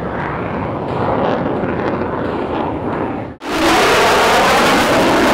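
Fighter jet engine noise as the jet flies overhead. About three and a half seconds in it cuts off abruptly, and a louder, hissier aircraft noise with a sweeping whoosh takes over.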